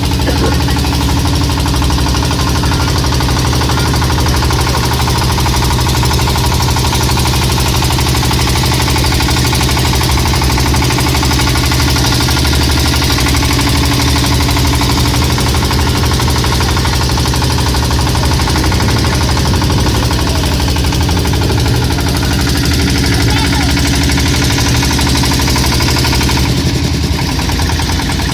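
Boat engine running steadily, with an even hiss over it; the sound eases slightly near the end.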